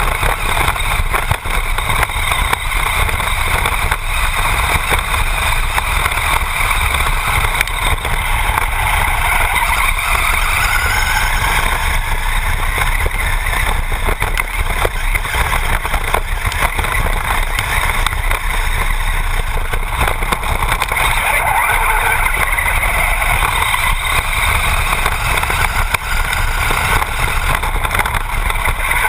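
Traxxas Bandit RC buggy with a brushless motor driving over rough dirt, heard from a camera mounted on the car: a continuous rattling drivetrain and tyre noise, with the motor whine rising and falling with the throttle.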